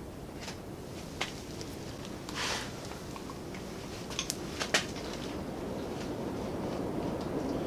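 Scattered light clicks and knocks, with one short scrape, from parts and tools being handled, over a steady low background rumble that slowly grows louder.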